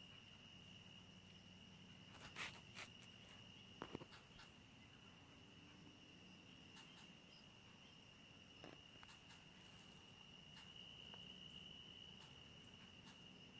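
Faint, steady high-pitched trilling of insects, with a few soft clicks about two and a half, four and nine seconds in.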